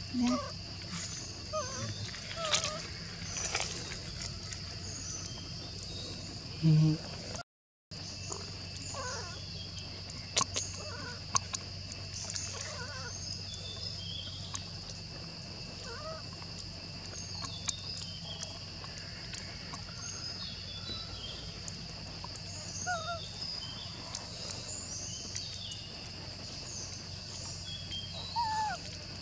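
Outdoor forest ambience: a steady high-pitched insect drone and a low hum, with scattered short chirping calls throughout. There is a brief, loud low sound about seven seconds in.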